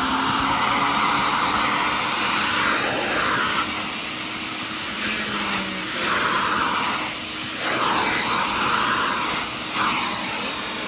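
Sirena water-filter vacuum cleaner running, its steady suction noise swelling and dipping several times.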